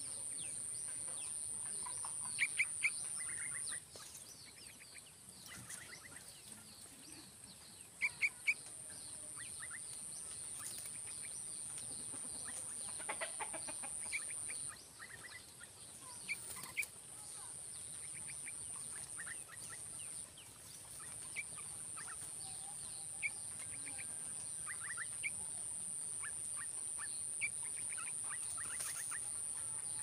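Yellow-vented bulbuls giving short, high chirps scattered at irregular intervals, a few of them sharper and louder, over a steady high-pitched insect drone that breaks off briefly twice.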